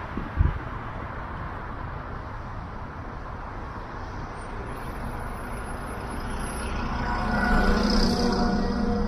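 Steady road and tyre noise from a car driving on a city avenue, with a short low thump about half a second in. Near the end the sound grows louder with a steady engine hum as an articulated city bus runs alongside.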